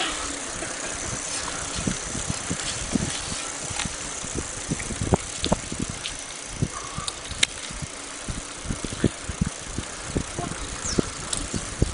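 Bicycles riding over a bumpy dirt road: a steady rushing noise with frequent irregular knocks and rattles from the bikes jolting over the ruts.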